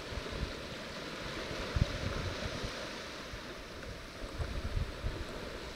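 Small waves washing onto a sandy beach as a steady hiss, with wind gusting on the microphone in irregular low rumbles.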